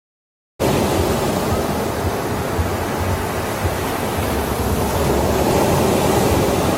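Loud, steady rush of wind and surf at a beach, with low rumbling wind gusts hitting the microphone; it cuts in abruptly about half a second in.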